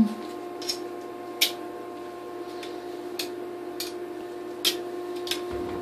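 Live crabs in a tub, with sharp irregular clicks and taps as their hard legs and shells and the metal tongs knock against the tub and each other, about eight clicks in all and the loudest right at the start. A steady electrical hum runs underneath.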